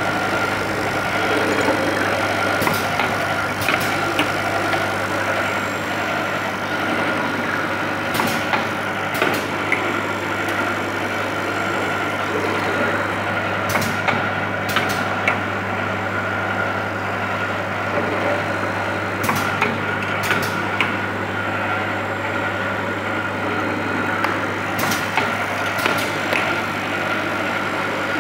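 Automatic tapping machine with indexing table and vibrating bowl and linear feeders running: a steady low buzz and a steady high whine, with pairs of sharp metallic clacks about a second apart repeating every five to six seconds, the machine's working cycle.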